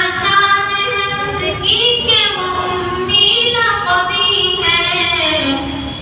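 A boy singing a naat, a devotional song in praise of the Prophet, solo into a microphone, with long held notes that waver and slide in pitch.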